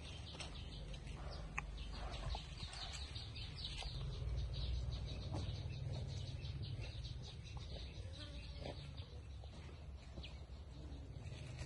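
Faint bird calls and short chirps, with some clucking, over a steady low rumble.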